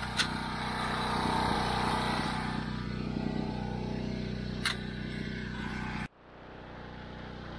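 John Deere 33 hay elevator running: its old electric motor hums steadily and the freshly tensioned drive chain runs over the sprockets, with two sharp ticks. The sound cuts out abruptly about six seconds in and comes back quieter.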